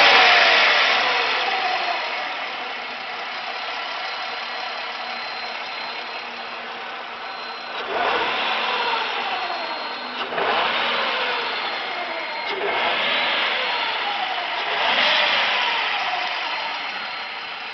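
Supercharged 4.0-litre straight-six of a Jaguar XJR idling and revved in several short throttle blips, each climbing and then dropping back to idle. A thin, steady high-pitched whine runs under it.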